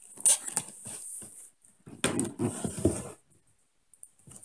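Cardboard retail box being pried and torn open by hand, with irregular scraping, tearing and rustling of the cardboard. It goes quiet about three seconds in.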